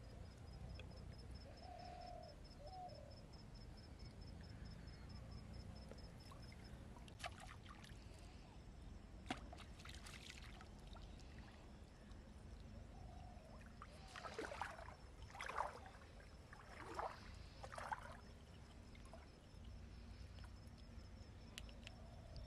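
Short bursts of water splashing and dripping as small fish are pulled from a shallow pond on hook and line. Under them run a low open-air rumble and a faint high pulsing trill. The splashes are grouped mostly in the second half.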